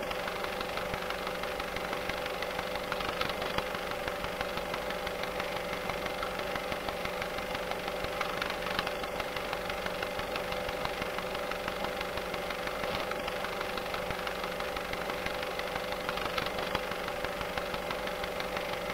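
A steady, unchanging hum with a constant tone, like a motor or an electrical appliance running.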